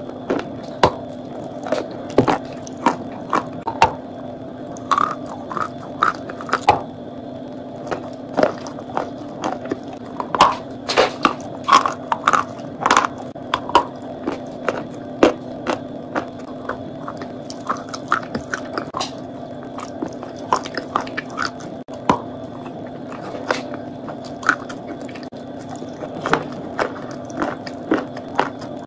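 Close-miked biting and chewing of a crumbly chalk block: sharp, crisp crunches at irregular intervals with softer chewing between them, over a steady background hum.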